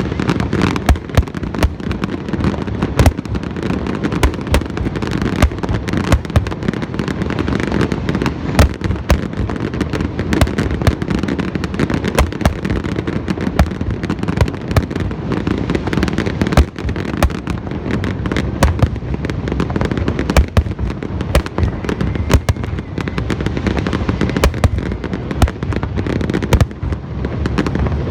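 Aerial fireworks display going off in a dense, continuous barrage: many shells bursting and banging in quick succession, several a second, over a steady rumble of crackling.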